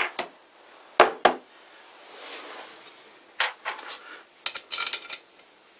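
Steel bolts clinking against the faceplate and chuck body as they are handled and threaded in: a few sharp metallic clicks near the start and about a second in, then a quick cluster of clinks with short bright rings in the second half.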